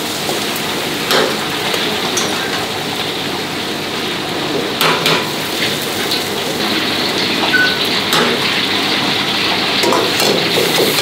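Minced beef, garlic and chillies sizzling steadily in hot beef fat in a wok. A few sharp clicks and knocks of a metal ladle on the wok break through the sizzle, most of them in the second half.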